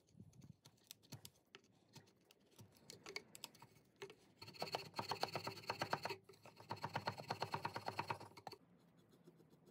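Chisel paring and scraping pine wood in scattered light clicks, then a round rasp filing a slot in the wood in quick back-and-forth strokes, in two runs of about two seconds each.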